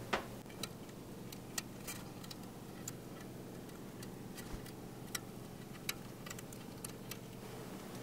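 Irregular small clicks and ticks of a hobby knife tip picking at and peeling green stencil mask off the lettering on a painted steel bike frame tube, over a low steady hum.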